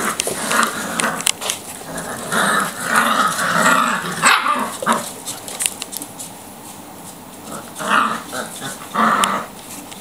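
Five-week-old Labrador puppies play-fighting, yapping and growling in bursts about two to five seconds in and again near the end, with short sharp clicks in between.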